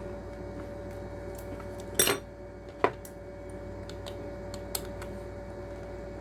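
Small hard clicks and taps of aquarium air pump parts being handled and fitted back into place, the loudest a short clatter about two seconds in, with single clicks near three and five seconds. A faint steady hum runs underneath.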